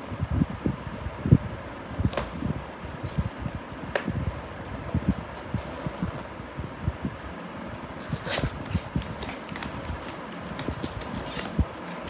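A cardboard product box being handled and opened: irregular soft bumps, rubs and scrapes of the cardboard, with a sharper click about eight seconds in. A steady whir runs underneath.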